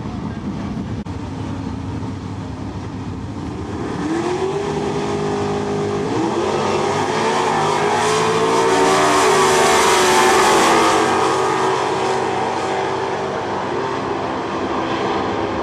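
Two Super Stock drag cars' engines launching from the starting line at full throttle, their pitch climbing sharply about four and six seconds in. The engines run hard down the quarter mile, loudest as the cars pass about two-thirds of the way through, then fade as they pull away.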